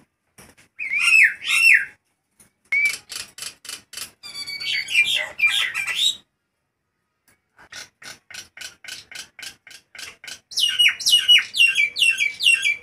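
Caged common myna (jalak nias) calling loudly in runs of harsh squawks and whistled notes. There is a short pause about six seconds in. From about ten seconds, a quick string of falling whistled notes follows, several a second.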